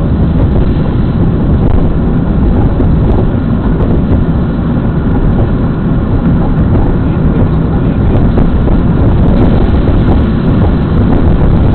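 Steady road and engine noise of a moving car, heard from inside the cabin, heavy in the low end and without any distinct events.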